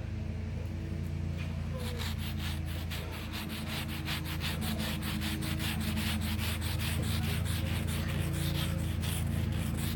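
Rapid, rhythmic scraping strokes on the plaster of a dig-kit dinosaur egg, starting about two seconds in at about four or five strokes a second, as the packed dirt is worn away to free the buried figure. A steady low hum runs underneath.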